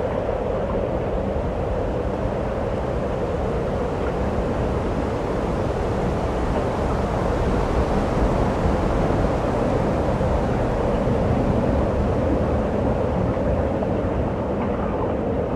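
Minnehaha Falls, a tall waterfall pouring into its plunge pool: a loud, steady rushing of falling water that keeps up without change.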